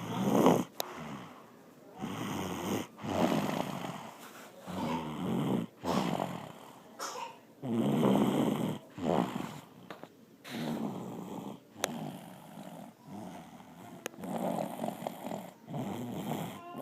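Loud snoring from a sleeper: rough, rattling breaths that come round irregularly every second or two.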